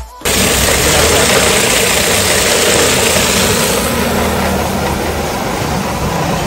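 Electric lassi churning machine running steadily, its motor and spinning shaft churning lassi in a steel pot as milk is poured in.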